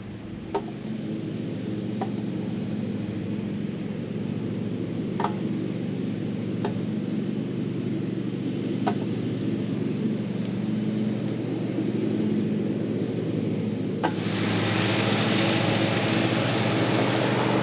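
Lawn mower engine running steadily, with a few sharp ticks scattered through it. About fourteen seconds in it gets louder and harsher.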